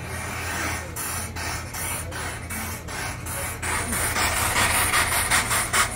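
Rhythmic hissing, swishing strokes from the 1901 paddle steamer Spiez getting under way. They come at about two to three a second and quicken to about five a second from about halfway, growing louder, over a steady low hum.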